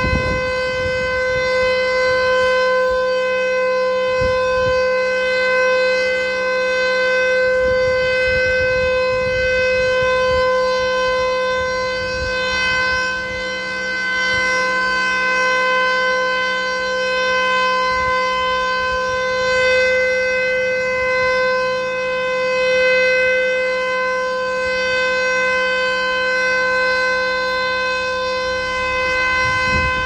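Public warning siren sounding one long, steady tone that does not rise or fall, signalling the time to break the Ramadan fast (iftar).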